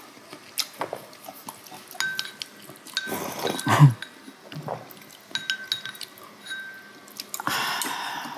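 Spoons and chopsticks clinking against small bowls while eating, many short clicks and several brief ringing clinks, with two longer slurps of soup, one about three seconds in and one near the end.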